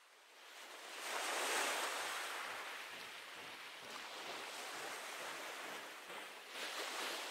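Steady outdoor rushing noise at a gas station that fades in over the first second, with a few faint knocks near the end.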